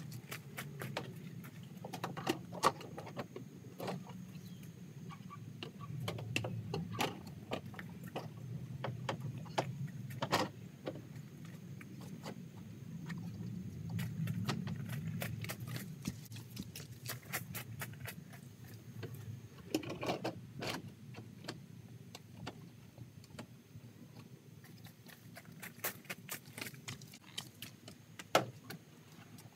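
Scattered light knocks and clicks of long vinyl post-wrap pieces being carried, handled and fitted around a porch post, over a steady low rumble.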